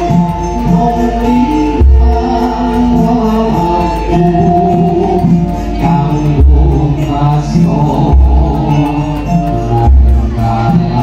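Chanted singing over music, with deep drum strokes at intervals of a second and a half to two seconds.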